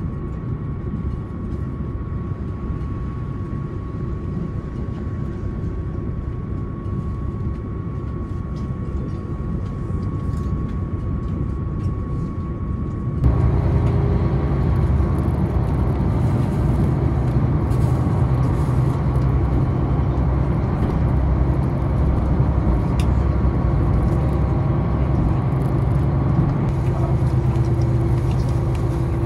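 Inside the cabin of a KiHa 261 series diesel express train on the move: a steady rumble of wheels on rail and the running diesel, with a faint steady whine. About thirteen seconds in the sound jumps louder, to a steadier low drone.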